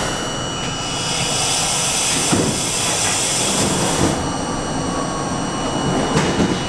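A stopped R42 subway car letting out a sustained hiss of air for about three seconds, which stops abruptly. Under it runs the car's steady high-pitched equipment whine, with a faint click or two.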